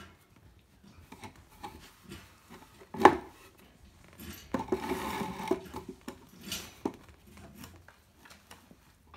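Puppies scrabbling and playing among toys on a hard floor: a sharp knock about three seconds in, then a stretch of scraping and rubbing, with scattered small clicks.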